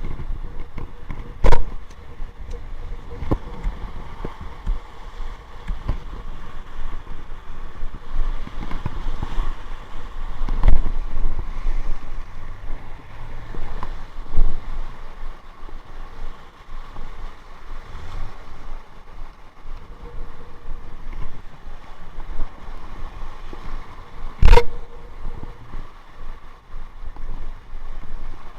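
Wind buffeting the microphone over the rush of a rough sea, with a handful of sharp knocks scattered through.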